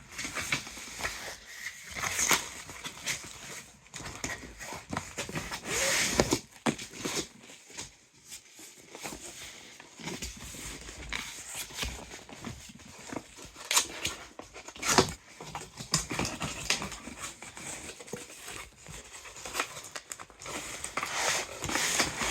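Packaging being handled and opened: crinkling and rustling, with irregular clicks and knocks.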